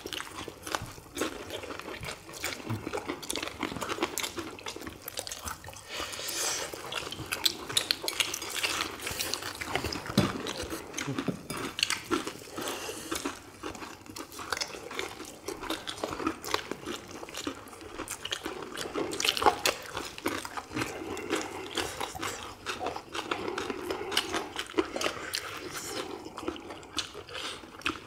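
Close-up eating sounds: people biting and chewing crispy fried chicken drumsticks, with dense, irregular crunches and wet mouth sounds.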